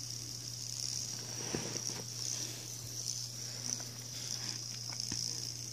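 Fidget spinner spinning on its centre bearing, held between thumb and finger: a steady high-pitched whir with a few faint ticks. The bearing is still a little rattly.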